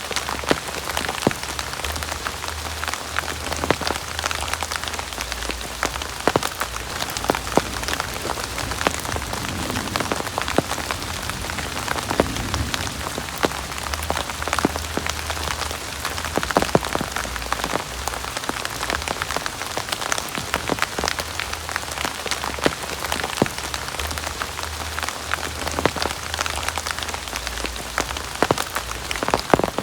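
Heavy rain falling steadily, with many sharp drop impacts throughout and a low rumble underneath that comes and goes.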